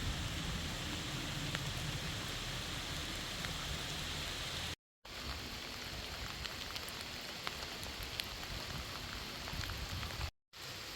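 Steady rain falling, with scattered ticks of individual drops. The sound cuts out briefly twice, about five seconds in and again near the end.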